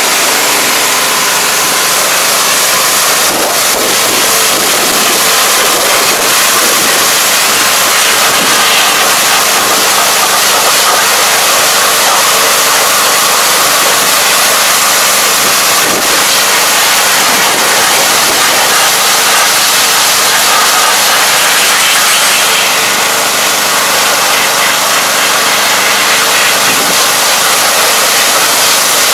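High-pressure washer running steadily, its motor humming under the loud hiss of the water jet spraying against a rice transplanter.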